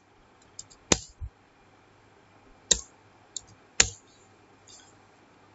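Computer keyboard keys being pressed: a handful of single sharp clicks spaced a second or so apart, the loudest about a second in and near four seconds.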